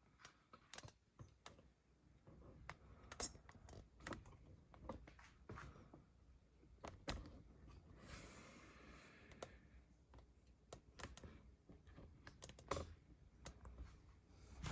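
Faint, irregular clicks and taps of small plastic toy pieces being handled, with a short soft rustle about eight seconds in.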